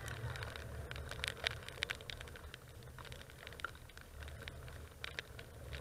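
Rain pattering, with scattered sharp ticks of drops landing close by, over a low steady rumble.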